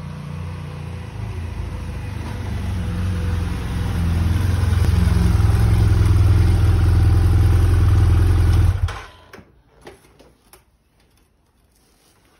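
Motorcycle with an Akrapovič aftermarket exhaust approaching and pulling up, its engine running louder as it nears, then running steadily close by until it is switched off and cuts out suddenly about nine seconds in. A few faint knocks and clicks follow.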